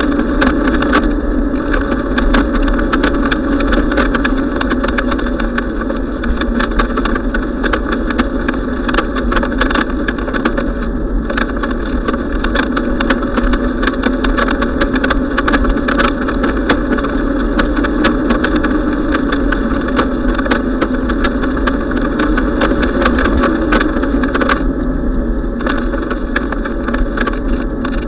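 Bicycle rolling along an asphalt trail, heard through a camera mounted on the bike: a loud, steady rolling noise with a constant patter of small rattling clicks.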